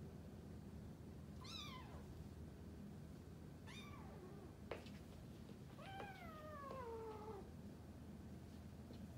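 Kittens mewing during play-wrestling: two short, high mews that fall in pitch, about a second and a half and about four seconds in, then a longer meow falling lower, from about six seconds in. A single sharp tap just before five seconds in.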